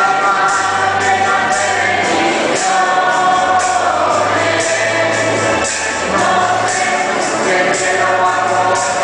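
A choir singing a church hymn with instrumental accompaniment: a bass line under the voices and a light percussion instrument keeping a steady beat of about two strokes a second.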